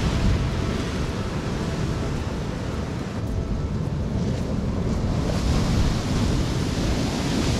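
Steady rush of wind buffeting the microphone, mixed with the wash of sea and surf.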